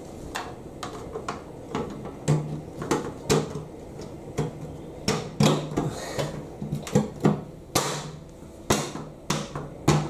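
Irregular sharp plastic clicks and knocks, two or three a second, as the plastic kick strip at the base of a front-loading washing machine is handled, over a low hum from the running machine that comes and goes.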